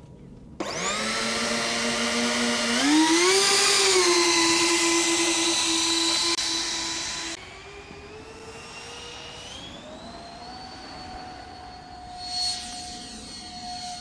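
Twin 64 mm electric ducted fans of an RC F-22 jet whining up suddenly, stepping higher in pitch a few seconds in as the throttle opens. It then drops away to a fainter whine that climbs in pitch and holds as the jet takes off, with a brief rush of noise near the end.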